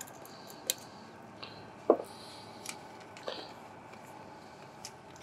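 Faint handling sounds: a few soft clicks and taps, with one sharper knock about two seconds in, as a DeoxIT contact-cleaner bottle is worked in among a watt meter's switch and potentiometer contacts.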